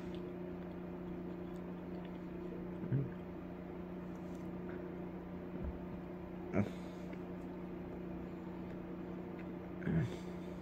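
A person eating a snack cake: a few brief, soft mouth noises, four in all, spaced a few seconds apart, over a steady low room hum.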